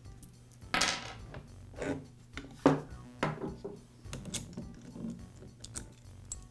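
Loose clinks and knocks of a Poulan P3314 chainsaw being taken apart by hand: the plastic side cover and bar nuts set down on a wooden bench, then the saw chain clattering as it is pulled off the bar. The knocks come one at a time, the sharpest about two and a half seconds in.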